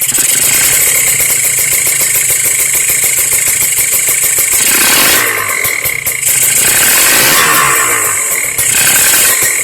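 A modified Kawasaki Ninja 150 RR's single-cylinder two-stroke engine running loudly with a raspy 'ngorok' growl. Its revs rise and fall a few times.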